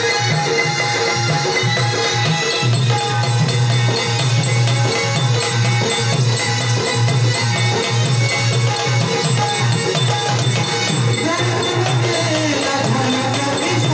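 Marathi folk-style music: a dholki drum keeps a steady driving beat under sustained melody notes. Near the end a melody line glides up and down in pitch.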